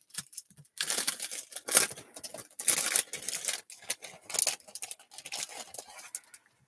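Clear cellophane packaging crinkling and rustling as hands handle and shift sheets of glitter cardstock in their plastic sleeves, a dense run of crackles that starts about a second in and thins out near the end.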